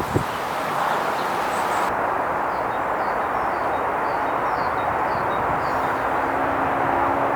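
Steady rushing roar of strong storm wind through trees. From about two seconds in, a small bird chirps repeatedly, about two short falling chirps a second.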